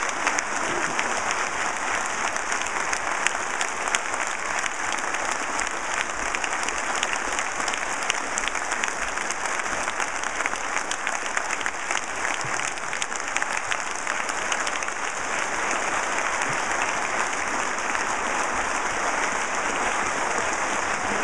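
A large audience applauding, a dense, steady clapping that goes on without a break.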